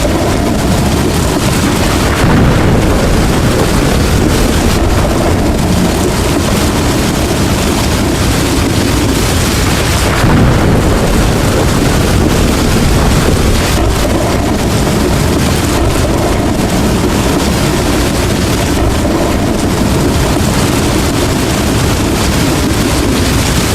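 Heavy rain pouring steadily, with low rumbles of thunder swelling briefly about two seconds and ten seconds in.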